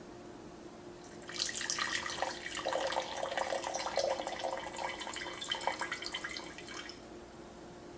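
Liquid pouring and splashing for about five and a half seconds, crackly with many small splashes, over a faint steady hum.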